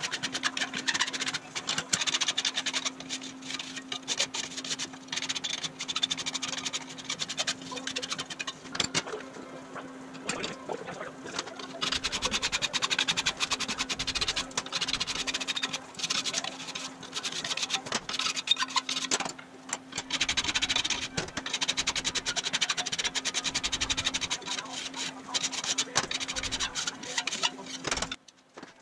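Hand file rasping along an aluminum angle held in a bench vise, in runs of quick back-and-forth strokes with short pauses between. A steady low hum sits underneath.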